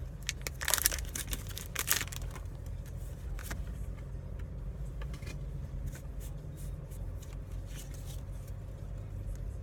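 Foil Pokémon booster pack crinkling and tearing open in the first two seconds or so, then the cards being handled, with small clicks and slides, over a steady low hum.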